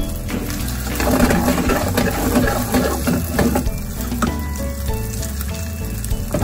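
Yakisoba noodles frying in oil in a frying pan, a steady sizzle that gets louder about a second in as the noodle cake crisps on its underside. Background music plays over it.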